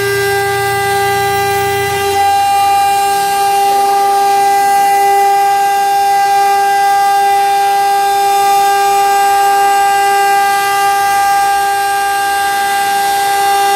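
JIKE 1325A CNC router's spindle running with a steady whine at one unchanging pitch. A lower hum underneath stops about three seconds in.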